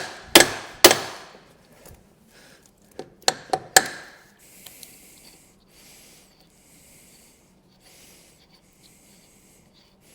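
Sharp metallic knocks and clanks of hand tools on car suspension parts: three in the first second, each ringing briefly, then a quicker cluster of four about three seconds in. After that comes faint, repeated scraping.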